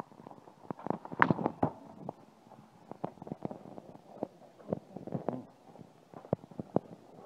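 Footsteps on wet brick paving, an uneven run of soft thumps and clicks at walking pace mixed with handling rubs on the microphone, with a louder cluster about a second in.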